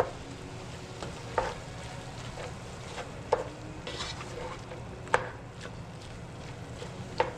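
Ground chicken sizzling as it fries in a pot while a utensil stirs and breaks up the meat, knocking against the pot about every two seconds.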